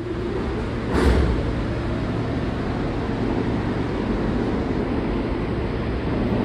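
New York City subway train running through an underground station: a steady rumble of wheels on rail under a low hum, with a brief louder surge about a second in.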